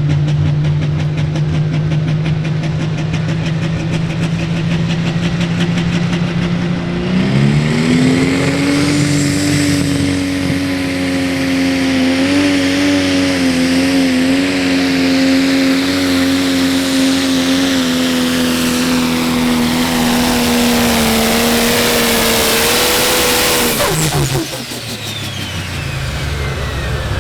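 Pro Stock pulling tractor's turbocharged diesel engine making a pull: steady high revs, then a rise in pitch about seven seconds in, held with wavering under load down the track. About 24 seconds in the throttle is pulled back and the engine note drops away, leaving a falling turbo whistle and rapid fluttering chuffs of the turbo flutter.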